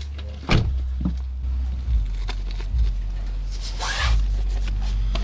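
Wind rumbling on the microphone, with a short click about half a second in and a brief rustle of jacket fabric about four seconds in.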